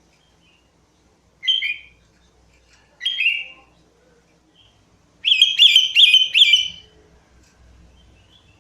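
Sooty-headed bulbul singing: two short phrases, then a longer run of about four quick repeated notes.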